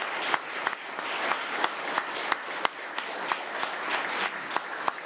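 Audience applauding: many people clapping at once, with a few sharp individual claps standing out.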